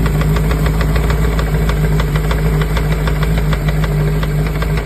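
Sai 600 motorcycle engine running steadily with a fast, regular knock over the engine drone. This is the typical abnormal knock that the teardown traces to worn crankshaft bearing shells, worn through to the copper layer.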